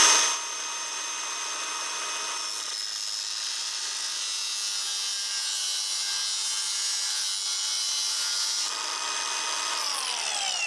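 Cordless Milwaukee angle grinder with a thin cutoff disc cutting relief grooves across the threads of a steel bolt clamped in a vise: a steady high motor whine over a grinding hiss. Near the end it is switched off and the whine falls as the disc spins down.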